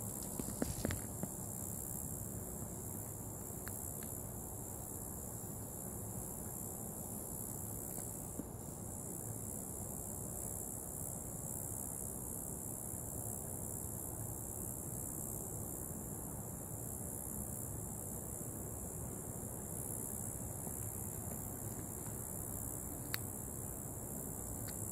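Steady, high-pitched chorus of night-singing insects over low, even background noise, with a few faint clicks near the start.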